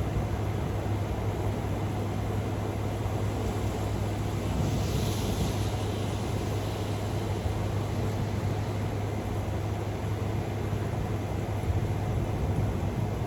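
Steady thunderstorm rain hiss over a constant low rumble; a brighter hiss swells briefly about five seconds in.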